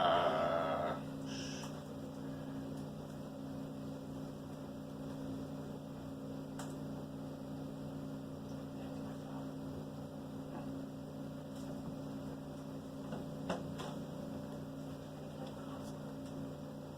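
Steady low electrical hum, made of several constant tones, with a brief louder noise at the very start and a few faint clicks later on.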